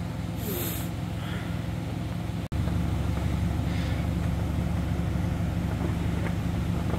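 Car driving slowly: a steady low engine hum with road noise. The sound drops out abruptly about two and a half seconds in and comes back a little louder.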